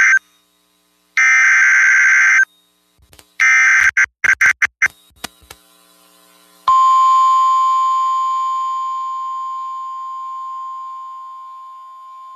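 Start of a NOAA Weather Radio warning: a buzzy burst of SAME digital header data, then a second burst broken up and choppy, then about seven seconds in the steady 1050 Hz warning alarm tone begins and slowly fades.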